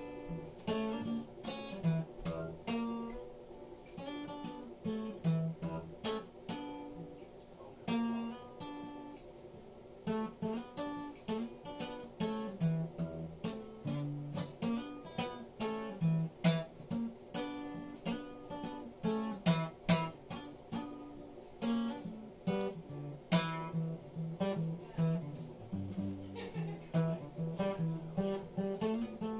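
Acoustic guitar played by hand: picked single notes and strummed chords in an unhurried tune.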